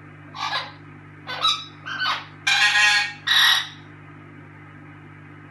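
Orange-winged Amazon parrot giving a run of about five loud, harsh squawking calls, the longest near the middle. These are calls that the owner presents as the bird's in-heat (breeding-condition) calls.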